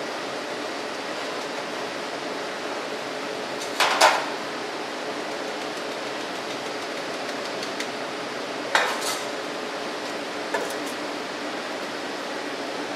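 Metal clanking as a brass test sieve and a stainless steel bowl knock together while sieved aggregate is emptied for weighing: a loud clank about a third of the way in, another about two-thirds in, and a lighter one shortly after, each with a short ring. A steady hiss runs underneath.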